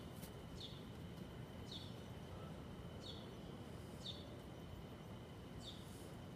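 Faint, short high chirps, each dropping in pitch, repeating roughly once a second over a steady thin high whine and low background noise.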